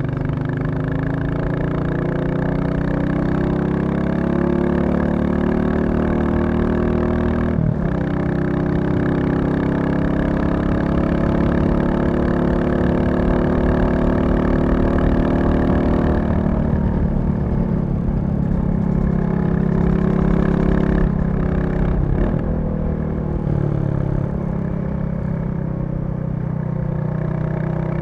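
Royal Enfield Classic 350's single-cylinder engine running under load, its note climbing slowly, with a brief break about eight seconds in. Past the middle the note eases off and falls, with two more short breaks near the end.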